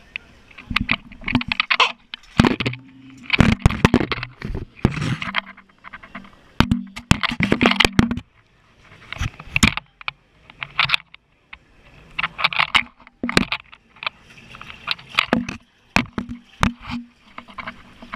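Handling noise from a GoPro camera: irregular scraping, rubbing and knocking as it is moved against skin and swim shorts, with sharp clicks among the bursts.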